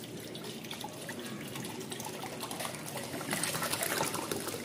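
Water poured from a plastic bottle into a small stainless-steel pot, splashing into it as it fills; the splashing gets louder about three seconds in.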